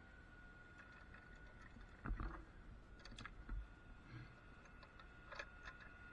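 Faint, scattered clicks and knocks of metal hardware being handled on a cable lasher: its chain, hooks and clamps. The loudest knock, with a low thump, comes about two seconds in, over a faint steady high tone.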